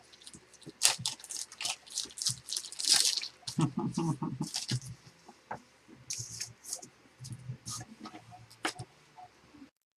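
Trading cards and plastic card holders being handled on a table: a string of irregular rustles, scrapes and small clicks, busiest in the first half.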